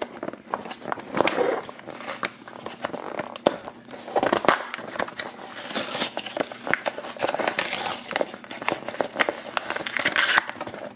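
Cardboard backing of a toy blister pack being torn open by hand: crinkling, tearing card and plastic with many sharp crackling snaps.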